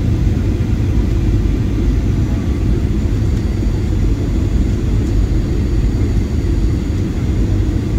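Steady low rumble of engine and airflow noise inside an airliner's cabin as it descends to land.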